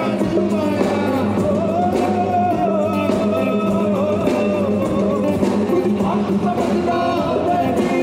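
Live folk-rock fusion band performing: a singing voice over guitar, tabla and drum kit, with a steady beat.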